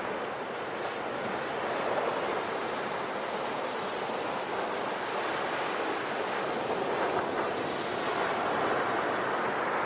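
Sea surf: waves washing onto a shore in a continuous rush, swelling and easing gently, with a second swell a little past the halfway point.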